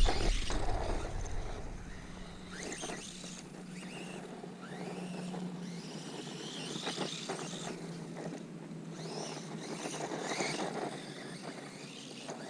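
ZD Racing Rocket 1/16-scale RC truck's brushless motor whining, the pitch rising and falling again and again as the truck speeds up and slows. Wind rumbles on the microphone for about the first second.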